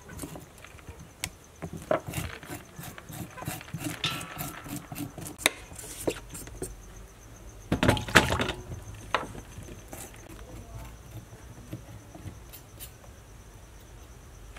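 Green papaya being prepared by hand: a metal spoon scraping the seeds out and the fruit knocking on a wooden board, in short scrapes and knocks, loudest in a cluster about eight seconds in. A faint steady high whine sits underneath.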